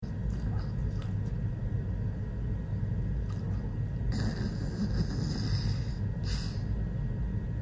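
Steady low background rumble, with two short rustles about four and six seconds in.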